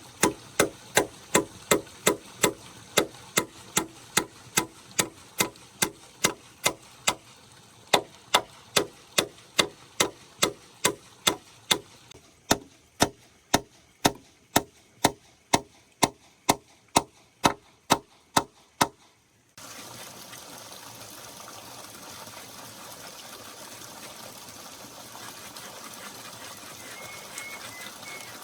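Steady, regular blows of a hand tool striking wood, about two a second, which stop about 19 seconds in. A steady rush of flowing water follows.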